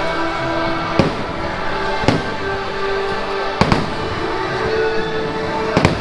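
Fireworks going off in sharp bangs every second or two, some in quick pairs, over steady music.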